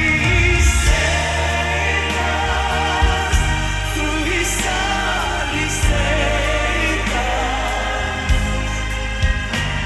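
Christian worship song: singing voices with vibrato over a band with a steady bass line and bright cymbal-like splashes.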